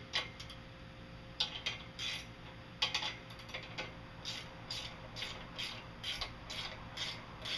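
Ratchet wrench clicking as it tightens a nut on the bracket that holds the mast. There are a few separate strokes at first, then a steady run of about three strokes a second from about halfway in.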